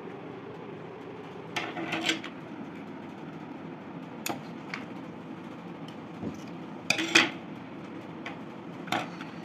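Scissors cutting a strip of glittery paper: a handful of short sharp snips and clicks, clustered about two seconds in and again, loudest, about seven seconds in, over a steady background hiss.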